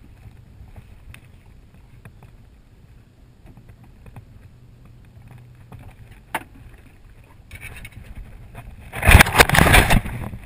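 A low steady rumble with a few faint clicks, then a loud flurry of splashing and knocking about a second before the end, as a hooked catfish is brought up beside a small boat.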